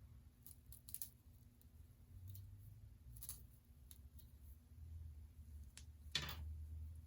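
Faint clicks and rustles of hands working on a wig on the head, with one louder rustle about six seconds in.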